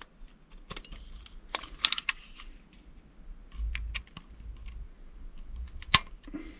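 Small screwdriver tip clicking and scraping against the plastic catches of a Makita autofeed screwdriver attachment, pushing in its clips to release the guide box shoe nose piece. Scattered light clicks and taps, with one sharp click about six seconds in.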